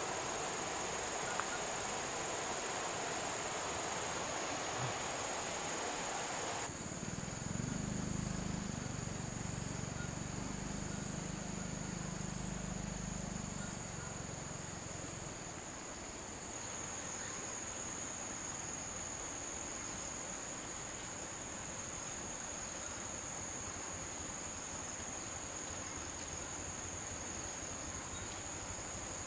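Insects singing in one steady, high-pitched drone. Under it, a rushing hiss cuts off abruptly about a quarter of the way in, and a low hum follows for several seconds before fading.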